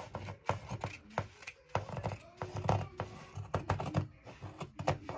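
Fabric scissors cutting through Ankara print fabric: a quick, irregular run of crisp snips and blade clicks as a strip is trimmed off the edge.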